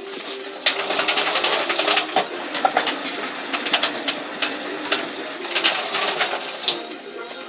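Mushroom baglog machine running: a steady motor hum with irregular clicks and rattles over it.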